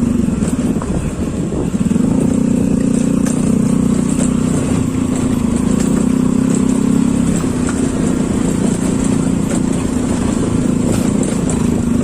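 Honda Click scooter's single-cylinder engine running steadily while riding, easing off briefly about a second in and then picking up again.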